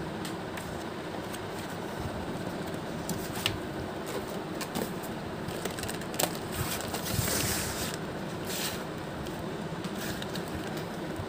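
Cardboard medicine boxes and paper being handled and set down on a table: scattered light taps and clicks, with short rustles a little past the middle, over a steady background hum.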